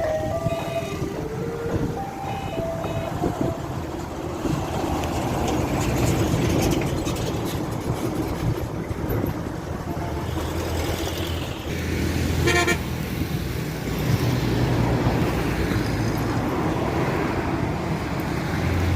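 Road traffic with engines running and vehicle horns: a run of short horn toots in the first few seconds and another short horn blast about two-thirds of the way through.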